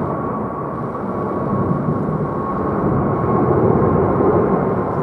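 Boeing 777-200ER's twin Pratt & Whitney turbofan engines at climb power just after takeoff: a steady jet rumble with a thin steady whine through it, swelling slightly near the end.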